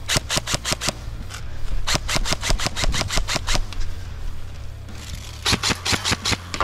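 Electric airsoft rifle firing three full-auto bursts of rapid shots, the middle one the longest. The player is pre-firing at a spot where the opponent may be hiding.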